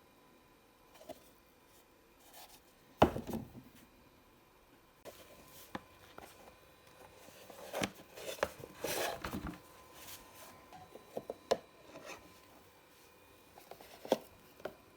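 Small plastic tubs being handled and fitted to a plastic wash bucket: scattered knocks, clicks and taps, with a sharp knock about three seconds in and a burst of rustling around the middle.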